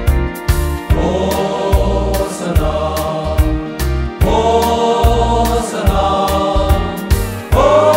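A men's vocal group singing a gospel song in harmony over a backing track with a steady drum beat and bass. New sung phrases come in about a second in, at about four seconds and near the end.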